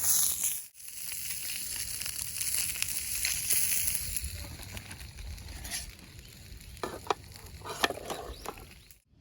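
Food sizzling in a pan, a steady hiss that breaks off briefly about a second in, with a few light clicks and knocks near the end.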